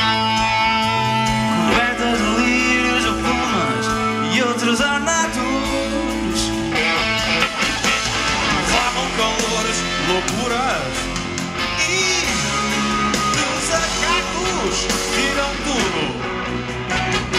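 Live pop-rock band playing, with electric guitar prominent, in a passage without sung words.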